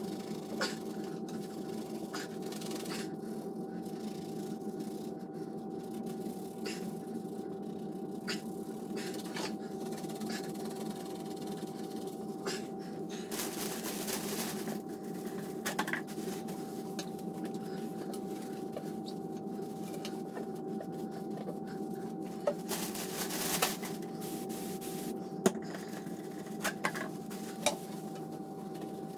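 A steady low hum with a thin constant tone, over which a few light clicks and two brief rustling scrubs stand out, from a gloved hand wiping the base of a porcelain toilet with a cleaning cloth.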